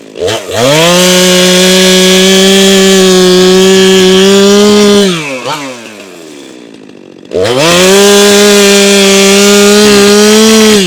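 Stihl MS 462 C chainsaw run up to full throttle twice while cutting through a log, holding a steady high pitch for several seconds each time. It drops back to a low idle between the two cuts.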